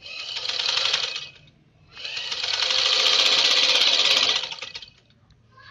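Usha sewing machine driven by a newly fitted electric motor, run twice from the foot controller as a test: a short run of about a second and a half, then a longer run of about three seconds, the mechanism clattering rapidly at speed.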